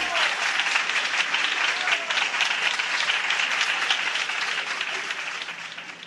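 Audience applause, many hands clapping together, fading out over the last second or so.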